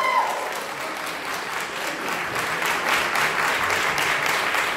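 Audience applauding: many people clapping at once in a dense, even patter.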